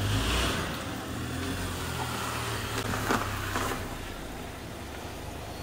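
A car's engine running steadily under a broad hiss, a little louder in the first second and then easing off.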